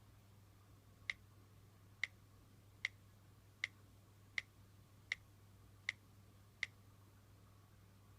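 iPad Air 2 speaker giving eight short, sharp pops, spaced a little under a second apart, between ringtone plays. This is the unwanted pop noise the device makes on iOS 8.1.3.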